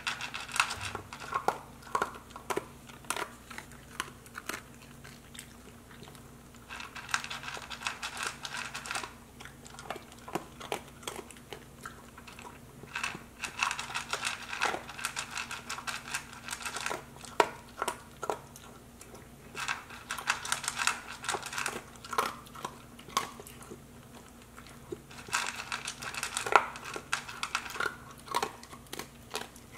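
A dog crunching dry kibble from a plastic bowl: runs of rapid, sharp crunches and clicks lasting a few seconds each, with short pauses between.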